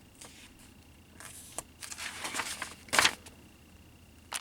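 Paper rustling as pages of a model kit's instruction booklet are turned, loudest about three seconds in, with a short sharp rustle just before the end.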